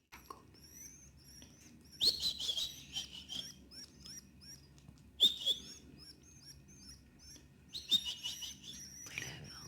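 Canary chicks about fifteen days old cheeping, the food-begging calls of nestlings being hand-fed by syringe. Rapid high cheeps run throughout, with louder flurries about 2, 5 and 8 seconds in.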